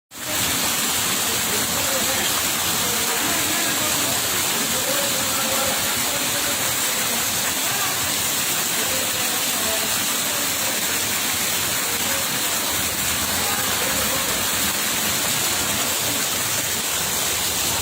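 Steady rushing of water, an even hiss that holds level throughout, with faint voices underneath.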